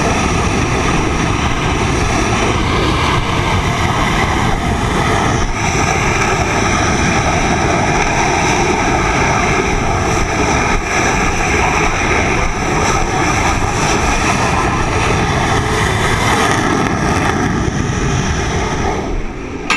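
Loud, steady jet engine noise from aircraft running on a carrier flight deck, a dense rush with a steady whine over it. It drops off sharply near the end.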